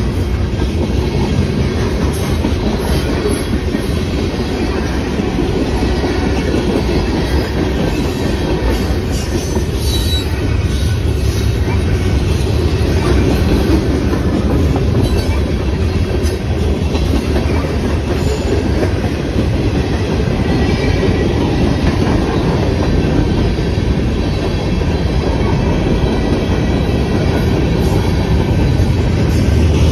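Norfolk Southern freight cars rolling past at close range: a steady, loud rumble and clatter of steel wheels on rail, growing a little louder near the end.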